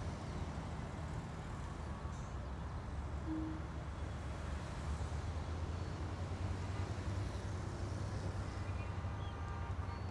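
A steady low rumble under a faint hiss, unchanging throughout.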